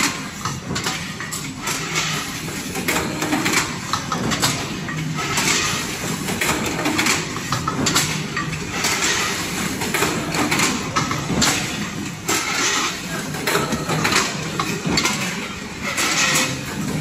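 Metal can-body production line running: a steady low machine hum under dense, irregular metallic clanks and clicks as tinplate can bodies are formed and moved along the conveyor.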